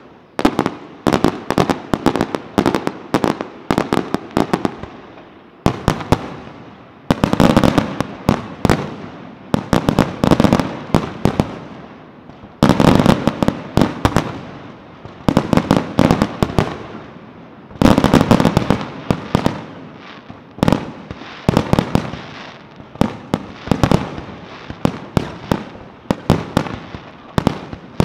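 Fireworks display: rapid, continuous volleys of sharp bangs from exploding shells, with three heavier, denser barrages about a quarter, nearly halfway and about two-thirds of the way through.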